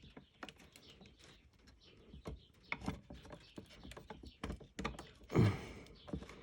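Scattered small clicks and taps of wires and a wall light switch being handled as the wire to the lamp is connected to the switch, with one louder thump about five and a half seconds in.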